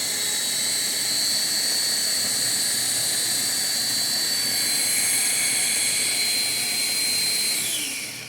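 Electric coffee grinder running at full speed as it grinds coffee beans, a steady high whine. Near the end it is switched off and the whine falls in pitch as the motor spins down.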